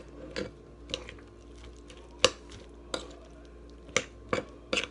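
Spoon stirring a thick okra-and-egg batter in a ceramic bowl, with a wet squish and sharp clinks as it knocks the side of the bowl, about seven times at uneven intervals.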